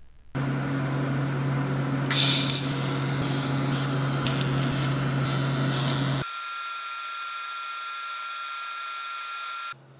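TIG welding arc on steel, hissing and crackling over a steady electrical hum from the welder. About six seconds in the sound switches abruptly to a thinner, higher hiss with a steady whistle-like tone, then stops shortly before the end.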